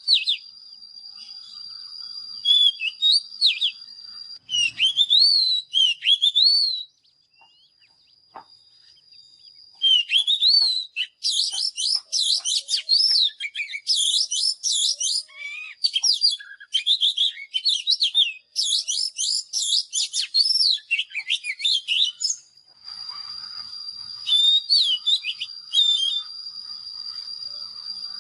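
Oriental magpie-robin singing a string of varied, sweet whistled phrases. The song pauses about seven seconds in, then resumes in a dense, rapid run for about twelve seconds before easing. A steady thin high tone runs behind it.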